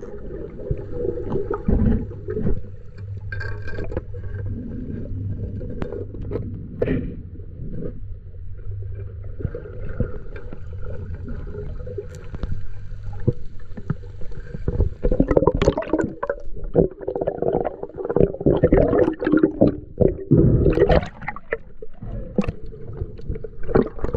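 Muffled underwater water noise heard through a submerged camera, gurgling and sloshing, with a low steady hum and frequent knocks and scrapes. It grows louder and busier in the second half.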